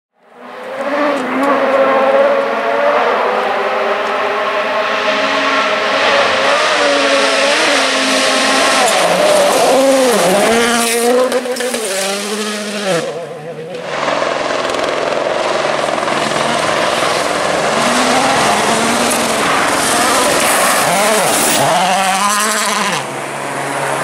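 2017-spec World Rally Car engines, turbocharged 1.6-litre four-cylinders, at full attack on a gravel stage: high revs, sharp drops through downshifts and braking, then climbing again under power, over a steady hiss. The sound cuts abruptly about halfway to a second car doing the same.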